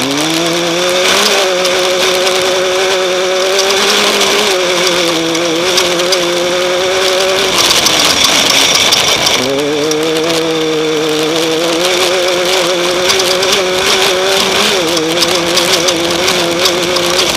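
An off-road race vehicle's engine running hard under throttle. Its pitch dips briefly about four seconds in, falls away for a couple of seconds around the middle and then climbs back up as the throttle opens again, and wavers near the end. A steady rushing hiss runs under it throughout.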